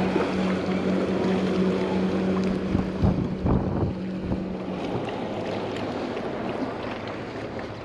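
Engine running at a steady pitch under wind noise on the microphone. The engine tone stops about five seconds in, leaving the wind.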